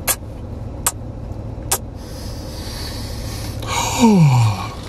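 Three sharp wet smacks of a man licking his fingers, then a breathy exhale and a falling "mmm" of appreciation near the end, over a steady low hum from the car.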